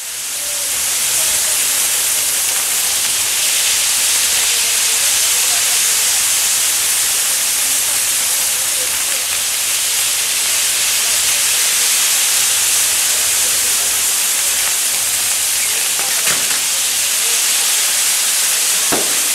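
Maltese ground-firework wheels spinning, their burning fountains giving a loud, steady hiss, with two sharp cracks near the end.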